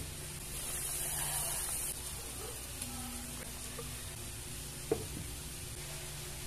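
Pan of squash broth simmering and sizzling steadily, with one sharp clink about five seconds in.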